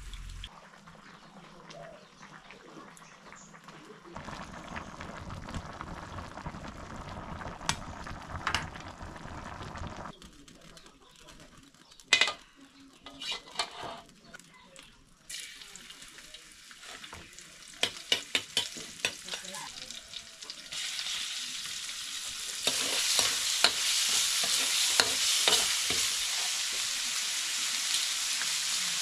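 Food frying and sizzling in a pan while being stirred, with scattered sharp clicks and scrapes of the utensil against the pan. The sizzling becomes steadier and louder in the last third.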